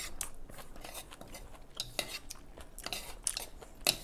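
Spoon and chopsticks stirring in a bowl of noodle soup, clinking against the bowl in a string of light, irregular clicks, the sharpest just before the end.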